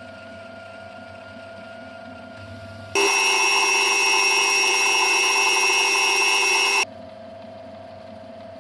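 Metal lathe running with a quiet steady hum. About three seconds in, the boring bar cutting inside the drilled steel wheel stud sets up a loud, steady high-pitched squeal that lasts about four seconds and stops abruptly.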